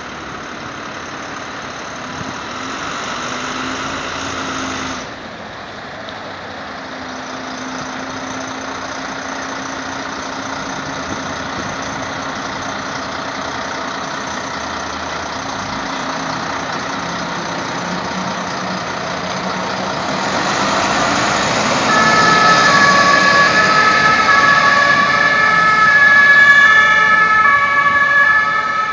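Fire trucks' engines running as the vehicles pull out and drive off. About 22 seconds in, a German two-tone emergency siren (Martinshorn) comes on, alternating between two notes, and is the loudest sound.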